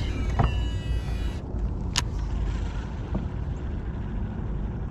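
Baitcasting reel's spool whirring as line pays out on a cast, stopping after about a second and a half, then a sharp click about two seconds in. Wind rumbles on the microphone throughout.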